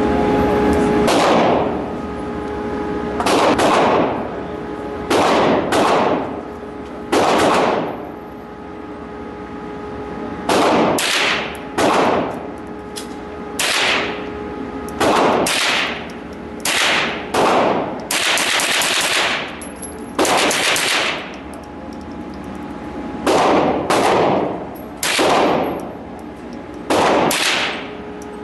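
Repeated single gunshots at a shooting range, about twenty in all, fired at an uneven pace of one every second or two with some quick pairs, each followed by a short echo.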